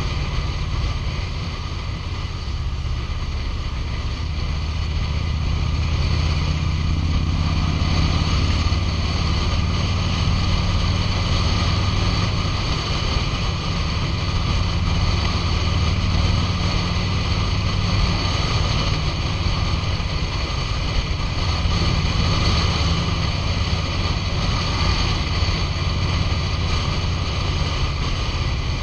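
2005 Harley-Davidson Road King's Twin Cam 88 V-twin running at road speed, a steady low engine note heard from the rider's seat, with wind rushing over the microphone. The engine grows louder a few seconds in and stays so through the middle.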